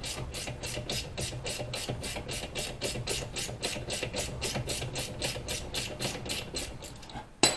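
Ratchet wrench clicking steadily, about five or six clicks a second, as it works the castle nut off a tie rod end stud. The clicking fades toward the end and is followed by one loud metallic clink.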